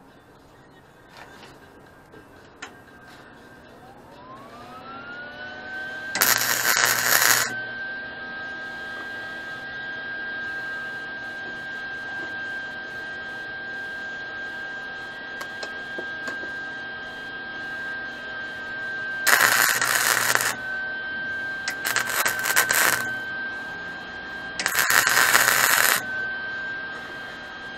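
MIG welder arc crackling and sizzling in four short welds of about a second each, tacking the links of a steel chain together. Under the welds runs a steady high whine that rises in pitch as it starts, about four seconds in.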